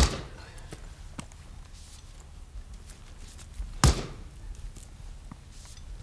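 Two axe blows into an unseasoned California live oak log standing on a chopping block. Each is a sharp chop, one at the start and the other about four seconds later.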